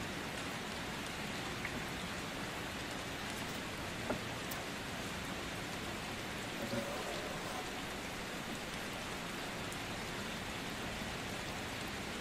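Pot of basmati rice sizzling and steaming as the last of its cooking water cooks off: a steady hiss, with two faint clicks about four and seven seconds in.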